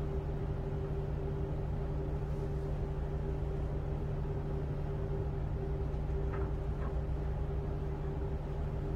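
Tugboat's diesel engines running steadily under tow load, a constant low drone with a steady hum, heard from inside the wheelhouse.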